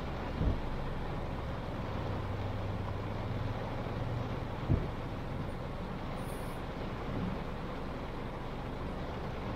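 Car driving in heavy rain: a steady rush of rain and tyre noise, with a low hum for a couple of seconds starting about a second and a half in. Two dull thumps, one near the start and one about halfway.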